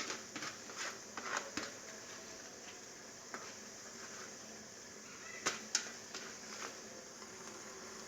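Light, irregular clinks and scrapes of a spoon against a bowl and kadai as ground coconut is added to hot oil, the loudest pair of clinks about five and a half seconds in, over a faint steady background hiss.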